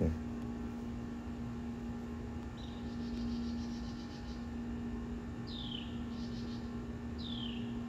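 A steady low hum with a few faint bird chirps over it: a brief rapid trill about three seconds in, then three short calls, each sliding down in pitch, in the second half.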